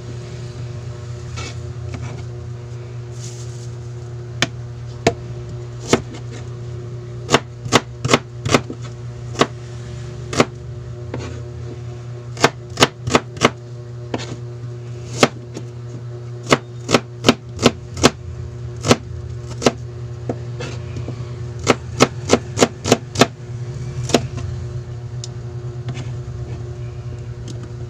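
Kitchen knife chopping red onion on a plastic cutting board: sharp knocks of the blade striking the board, in quick runs of several strokes with short pauses between, starting a few seconds in and stopping near the end. A steady low hum runs underneath.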